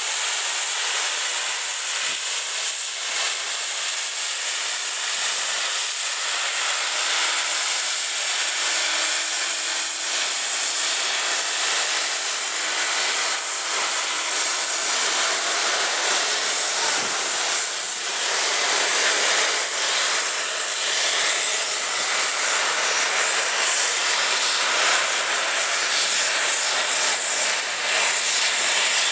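Peppercorn A1 Pacific steam locomotive 60163 Tornado blowing off steam at its safety valves: a loud, steady, high hiss.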